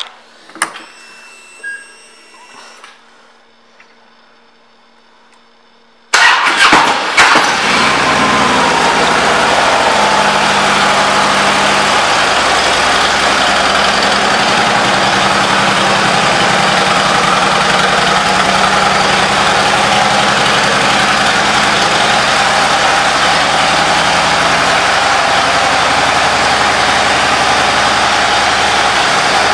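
A 2009 Harley-Davidson Ultra Classic's V-twin engine is started about six seconds in, catching at once and then idling steadily and loudly. Before the start there are faint clicks and a brief whine.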